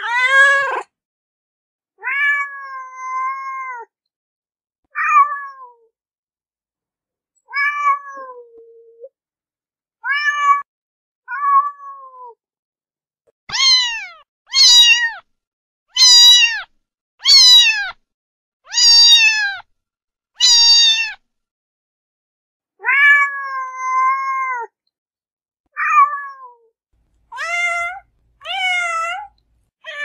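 Domestic cat meowing over and over, about sixteen separate meows with short silences between them. Midway comes a run of louder, higher-pitched meows, each falling in pitch, about one a second.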